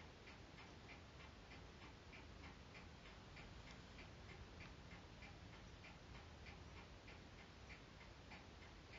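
Near silence with a steady run of faint, evenly spaced ticks, a few a second.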